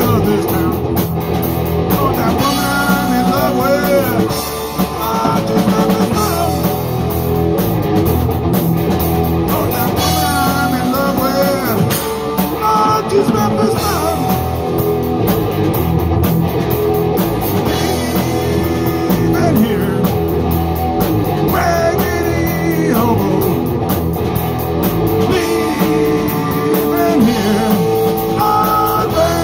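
Live rock band playing: distorted electric guitar, electric bass and a drum kit, loud and unbroken.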